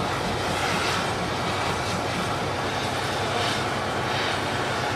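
Steady drone of a diesel locomotive idling close by, with an even hiss over it.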